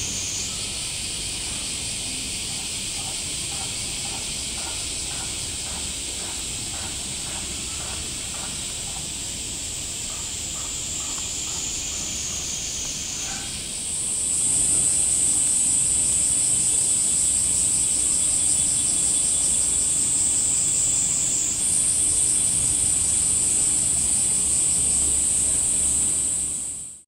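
Summer cicadas droning in a loud, steady, high-pitched chorus. The chorus steps up in pitch and gets louder about halfway through.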